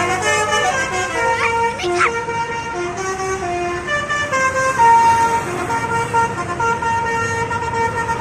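Basuri 'telolet' multi-tone bus air horn playing a melody of quickly changing notes, then holding one steady chord from about five seconds in.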